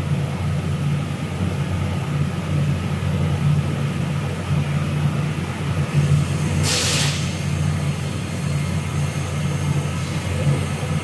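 Steady low machine motor hum that wavers slightly, with a short burst of hiss about seven seconds in.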